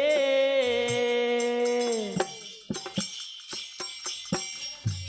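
Folk devotional music: a long held sung note ends about two seconds in. After it, wooden kartal clappers with metal jingles strike alone in a loose rhythm.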